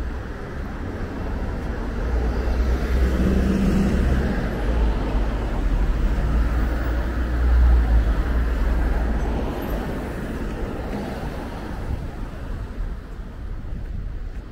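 Road traffic passing close by: car engines and tyres make a low rumble that swells to its loudest just past the middle, then eases off.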